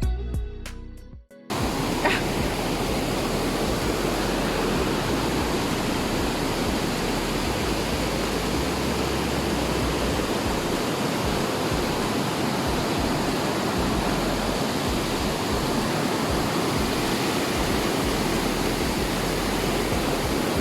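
Steady loud rush of fast-flowing water from a river swollen by heavy rain. Guitar music fades out in the first second and a half before the rush cuts in.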